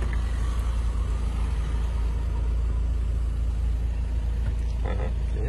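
Volkswagen Tiguan's engine idling at about 760 rpm, a steady, deep sound heard from inside the cabin.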